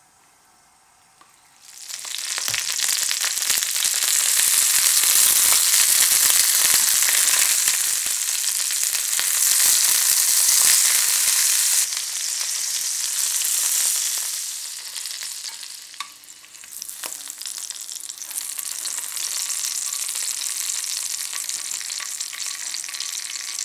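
Pork sausages, already poached, frying in hot oil in a frying pan: a loud sizzle starts about two seconds in as they go into the pan, eases briefly past the middle, then carries on steadily.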